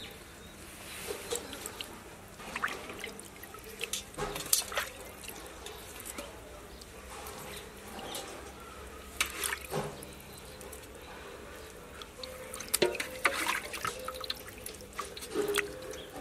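Water splashing and dripping in a steel basin as hands wash raw chicken drumsticks, in short irregular splashes.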